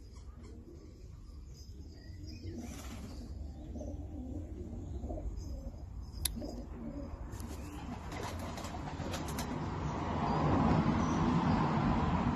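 Racing pigeon giving low repeated coos while held in the hand. A sharp click comes about six seconds in, and a rustling noise builds through the second half and becomes the loudest sound near the end.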